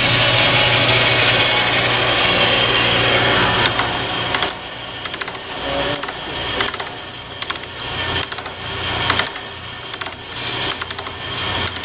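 Jet 14-inch vertical bandsaw with a variable-speed pulley drive running with its wheel door open: a loud, steady motor and blade noise with a low hum. About four seconds in, the sound drops sharply to a quieter, uneven running with scattered ticks.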